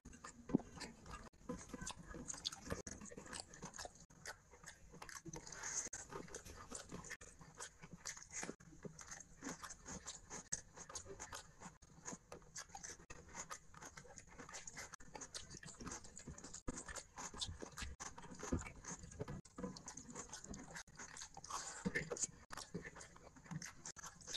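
Close-up eating sounds: wet chewing and lip-smacking of rice and curry eaten by hand, with fingers squishing and mixing the rice on a plate. They come as many small, irregular clicks and smacks.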